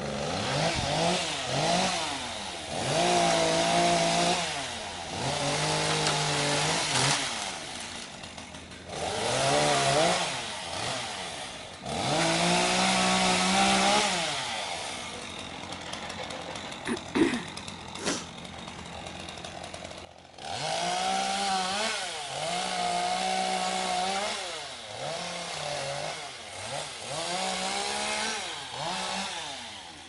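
Chainsaw revved in repeated bursts of a few seconds, its pitch climbing and then falling back toward idle between bursts, with a sharp crack about seventeen seconds in.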